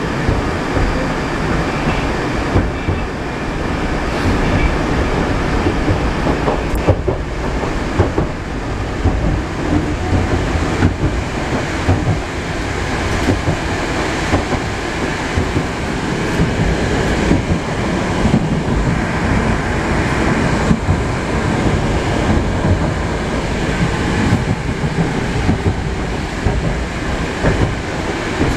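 Interior of a Moscow Metro 81-765.2 "Moskva" metro car running between stations: a steady rumble of wheels on the rails with occasional clicks over the track.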